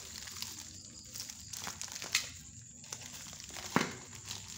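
Brown paper and tape wrapping crinkling and tearing as it is pulled off a bicycle chainring and crank, with two sharp clicks, the louder one near the end.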